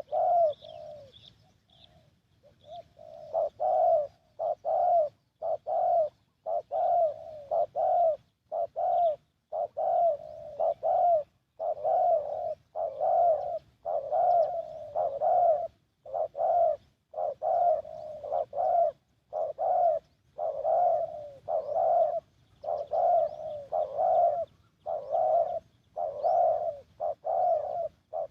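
Spotted dove (tekukur) cooing, one note after another about once a second with hardly a pause after a short lull near the start. A small bird chirps faintly at the beginning.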